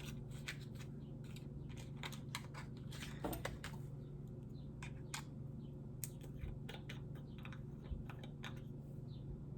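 Packaging of a lip mask being handled and opened: a run of small, irregular clicks and taps, over a faint steady hum.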